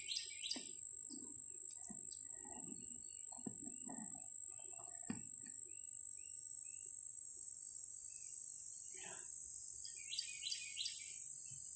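Birds chirping in quick bursts, once at the start and again about ten seconds in, over a steady high-pitched whine, with faint low mumbling in the first few seconds.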